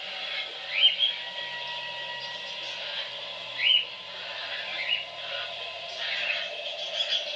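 Several short rising bird chirps, the loudest about a second in and near four seconds in, over a steady background hum.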